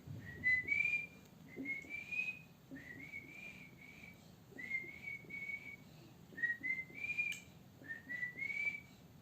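Whistling: six short phrases of two or three clear notes each, each phrase rising slightly in pitch, coming about every one and a half seconds.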